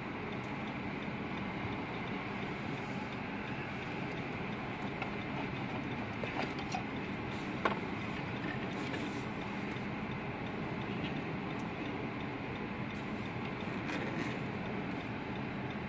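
Freight train of autorack cars rolling steadily past a grade crossing, a continuous rumble and clatter of wheels on rail heard from inside a car. A single sharp clack is heard about eight seconds in.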